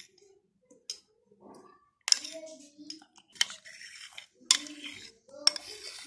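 A utensil clinking and scraping against a bowl as thick cream is poured out over fruit: four sharp clinks about a second apart, starting about two seconds in.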